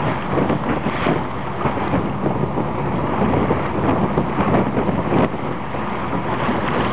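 Wind buffeting the microphone in steady gusts, with choppy sea water washing underneath.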